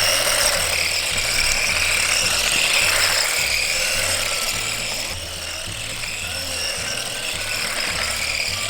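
Background music with a steady bass line, over the high whine of a 1/14-scale four-wheel-drive RC crawler's electric motor and gears as it drives.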